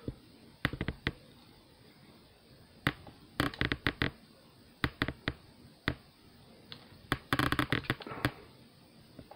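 Plastic parts of a Transformers Legacy Blurr action figure clicking and clacking as it is twisted and snapped into robot mode by hand. Single sharp clicks are scattered through, with a quick flurry of clicks about three and a half seconds in and a longer one about seven and a half seconds in.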